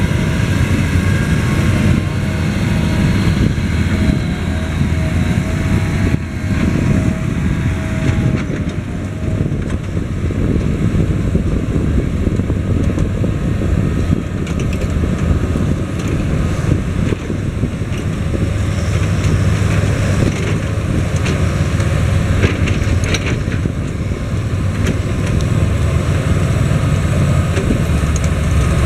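Fendt Vario tractors' six-cylinder diesel engines working steadily under heavy load as they pull earth scrapers through soil, a continuous low drone. A wavering whine rides over it for the first several seconds.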